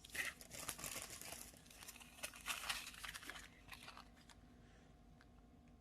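Small plastic bags of diamond-painting drills being handled, crinkling and rustling in irregular bursts for about three seconds, then fading out.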